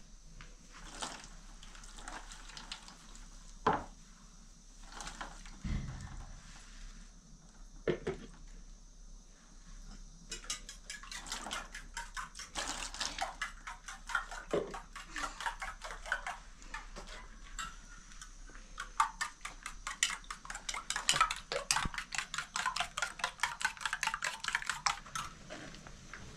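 Pots and dishes clinking and knocking as they are handled and washed by hand, with some water. From about ten seconds in comes a fast, uneven run of clattering, scraping strokes.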